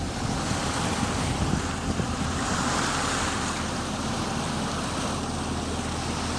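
Sea wash and wind on the microphone aboard a sailboat under power, with the steady low hum of its inboard engine underneath; the wash swells louder about three seconds in.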